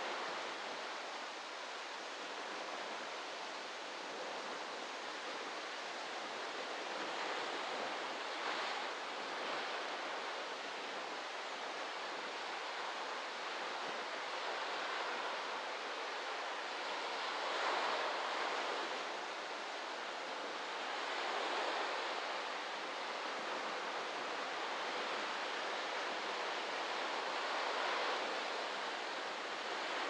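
Waves breaking and washing onto a beach: a steady surf hiss that swells gently a few times as individual waves break.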